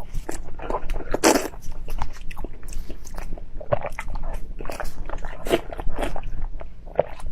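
Close-miked eating: a run of crisp bites and crunchy chewing, with the loudest crunch a little over a second in.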